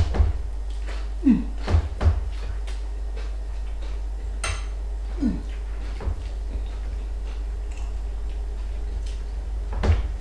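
Dishes and utensils knocking and clinking on a dining table while people eat, with several sharp knocks in the first two seconds and another near the end, over a steady low hum.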